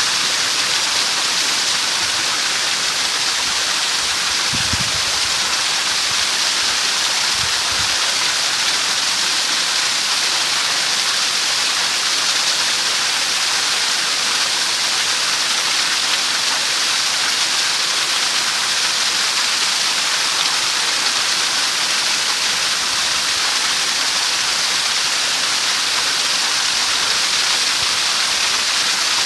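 Steady rushing of running water, with two brief low thumps about five and eight seconds in.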